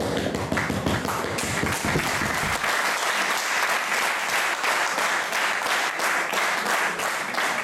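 Audience applauding, a dense run of claps. Low thuds sound under the clapping for the first two seconds or so.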